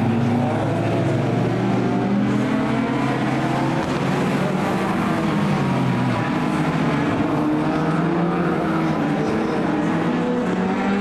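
A pack of racing saloon cars' engines revving hard through a corner, several overlapping engine notes rising and falling in pitch as the cars pass.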